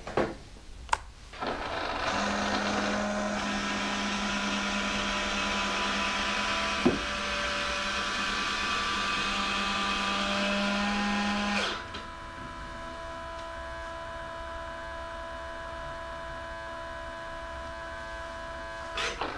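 Electric retract unit of a model jet's nose landing gear whining steadily for about ten seconds as the gear retracts, with a quieter, steady electric hum after it stops.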